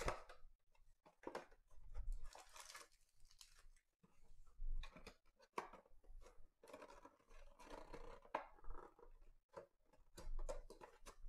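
A cardboard trading-card box being opened by hand: faint scattered rustles, scrapes and small tears as the lid and display flap are pulled open, with a few sharper clicks.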